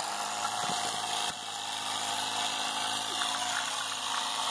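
Firestone 12-volt portable tire inflator's small electric compressor running steadily with a constant low hum, pumping air into a low car tire at about 15 PSI.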